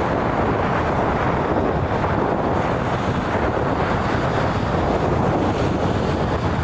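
Wind blowing hard across the microphone, a steady loud rushing, with waves breaking on a sandy shore under it.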